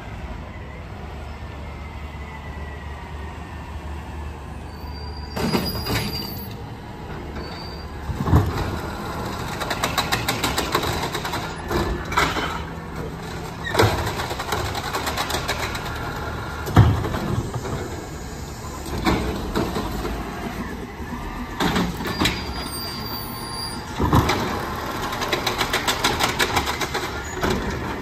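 Autocar ACX automated side-loader garbage truck with its engine running as it pulls up, then its hydraulic side arm gripping, lifting and dumping carts into the hopper. About eight loud clanks of the arm and cart, with stretches of rapid rattling as the cart is shaken out.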